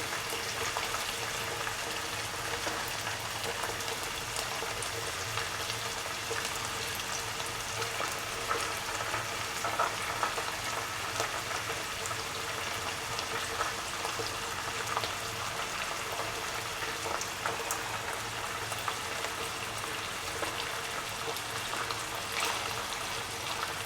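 Marinated anchovies shallow-frying in oil in a non-stick pan: a steady sizzling hiss with fine scattered crackles, over a faint steady hum.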